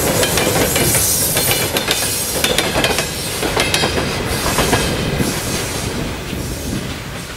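Freight train wagons rolling past, their wheels clicking over the rail joints in quick runs over a steady rumble; the sound fades near the end as the last car moves away.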